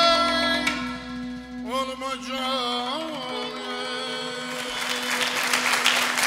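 Azerbaijani ashiq song ending: a man sings a long ornamented closing phrase with saz over a steady held drone note. About three-quarters of the way through, audience applause starts and grows.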